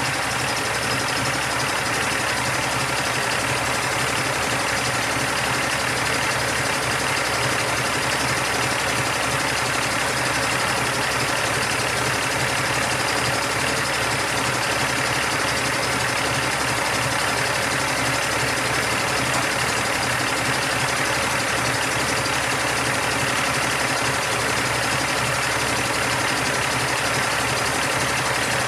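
2006 Cummins ISX straight-six diesel engine idling steadily, with no change in speed.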